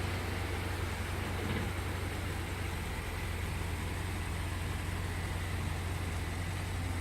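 2018 BMW 750 sedan's engine running at idle with a steady low hum as the driverless car creeps out of a tight parking space under remote control parking.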